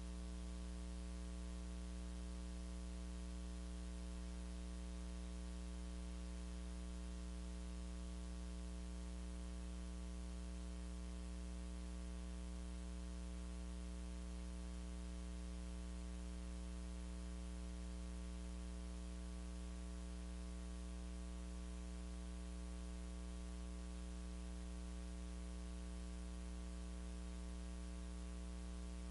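Steady electrical mains hum with a constant hiss, unchanging throughout; no music or voices come through.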